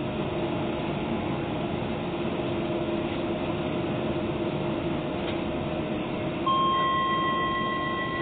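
Steady hum of a Docklands Light Railway train standing at a platform, then, about six and a half seconds in, an electronic chime of several tones sounds on board and rings on, slowly fading.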